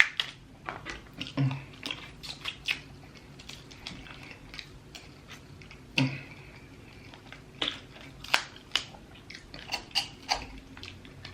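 Close-miked chewing and lip smacking: a run of short, sharp wet clicks from a mouth eating.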